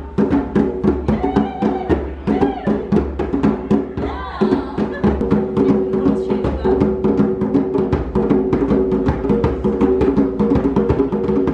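Djembe drums played with bare hands, a quick, steady rhythm of strikes.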